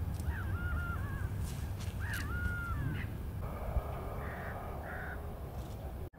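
A bird calls twice, each call under a second long, over a steady low rumble.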